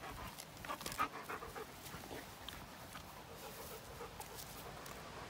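Dogs panting as a German shepherd and a terrier puppy tug at a stick together, with a few sharp clicks in the first second or so.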